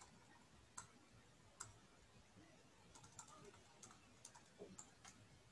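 Faint computer keyboard key clicks as the Alt+Tab task switcher is cycled through open windows. A few single presses about a second apart, then a quicker run of taps in the second half.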